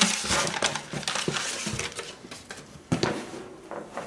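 Cardboard box and paper rustling and scraping as they are handled and moved, with a sharp knock about three seconds in.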